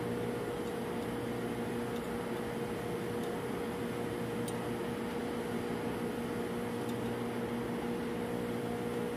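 Steady hum of shipboard refrigeration machinery, an even noise with a constant mid-pitched tone, with a couple of faint light ticks.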